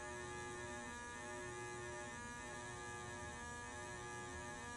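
Steady electrical hum with a buzzy edge and no change in level.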